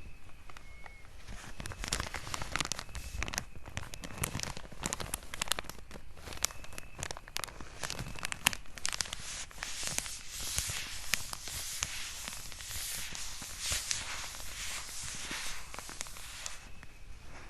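Paper being crumpled and crinkled by hand, a dense run of crisp crackles that starts about two seconds in and dies away near the end.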